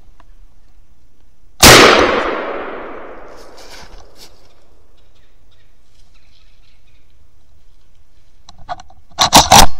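A single gunshot about one and a half seconds in, its echo fading over a second and a half or so. Near the end comes a quick run of several loud knocks.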